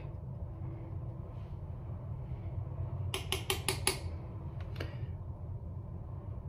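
A quick run of light, sharp taps, about six in under a second, then a single tap, over a steady low hum.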